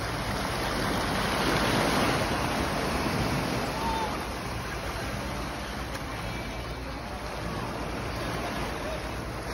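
Sea water surging and washing through a gap between limestone rocks, a steady rushing wash that is loudest for the first few seconds and then settles a little.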